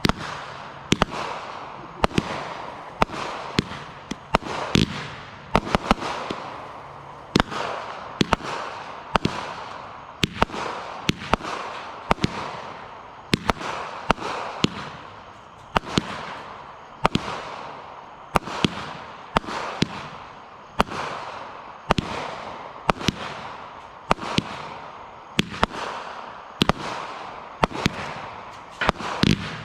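Consumer fireworks going off in a steady run of sharp bangs, about one a second and sometimes two close together, each followed by a fading rush of noise.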